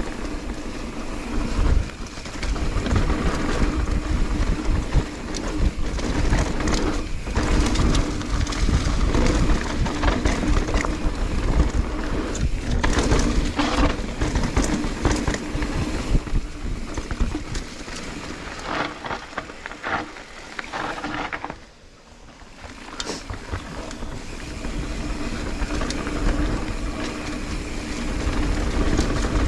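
Mountain bike descending a dirt singletrack at speed: steady wind and tyre rumble with frequent knocks and rattles from the bike over roots and rocks. It eases off briefly about two-thirds of the way through, then builds again.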